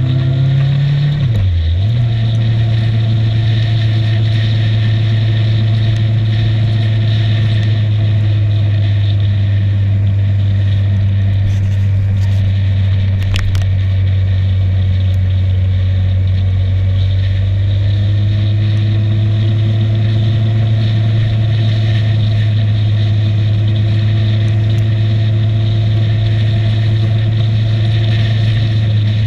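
Motorcycle engine pulling up through the revs, dropping sharply in pitch about a second and a half in as it shifts up a gear, then running at a steady cruising speed.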